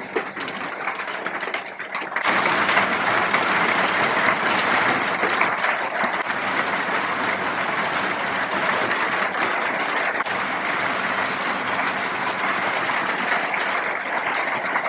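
Heavy rain falling, a dense patter of countless drops that suddenly grows heavier about two seconds in and then keeps on steadily.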